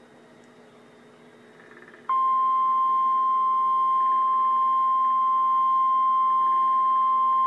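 Emergency Alert System attention tone for a tornado warning: after about two seconds of faint hum, a single loud, steady high tone switches on suddenly and holds without a break, signalling the voice warning that follows.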